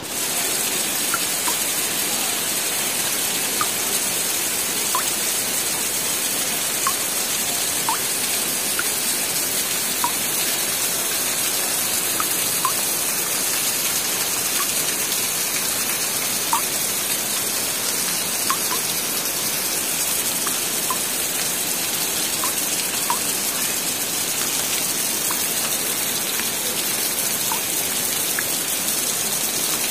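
Steady rain falling, an even hiss, with occasional short high plinks of drops every second or two.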